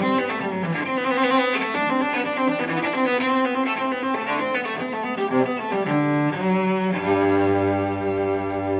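Cello and bowed string music plays a lively run of notes. About seven seconds in it settles on a long held chord.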